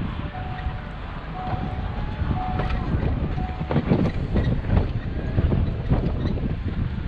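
Snow-plowing equipment running, its engine rumbling with a reversing alarm beeping about once a second, and several heavy knocks and clanks about halfway through.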